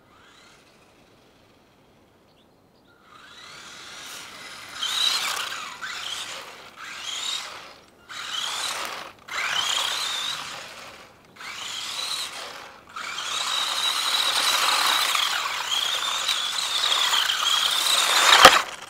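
Battery-powered RC truck's electric motor whining as it is driven in short bursts of throttle, the pitch rising at the start of each burst. Then it runs steadily for about five seconds, loudest as it passes close by, and ends in a sharp thump.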